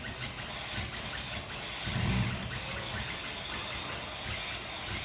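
Air-over-hydraulic motor of a drum dumper running steadily, a broad hiss with a low rumble beneath, as it lowers a clamped steel drum. The low rumble swells louder about two seconds in.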